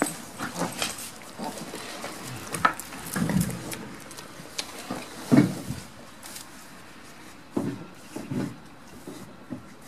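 Goats jostling to feed from a hand at a wooden pen: irregular knocks and rustles against the boards, the loudest thump a little past halfway.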